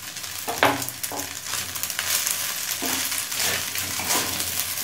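Pasta sizzling in hot oil in a metal kadai while a metal spatula stirs it, with repeated scrapes of the spatula against the pan.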